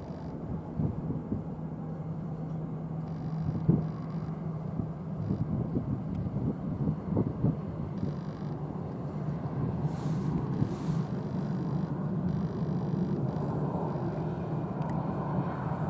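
Jet airliner engines rumbling, with a steady low hum, slowly growing louder toward the end.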